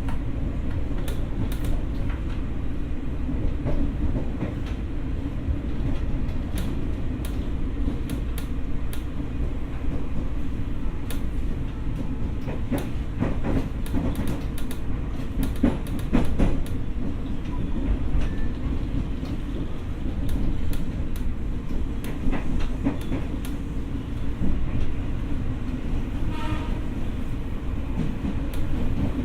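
Running sound of a Tokyo Metro 6000 series electric train car heard from inside the car: a steady rumble of wheels on track with repeated clacks over rail joints, thickest in the middle stretch.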